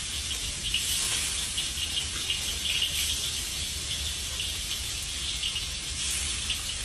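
Fish meat frying in hot oil in a wok: a steady sizzle with fine crackling throughout.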